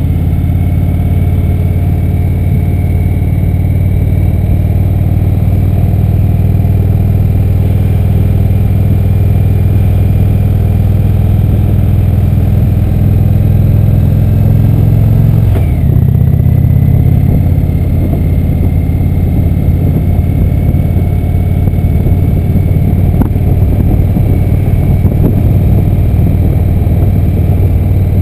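Indian V-twin motorcycle engine running under way at a steady cruising pace. The engine note briefly drops and breaks a little past halfway through, then steadies again.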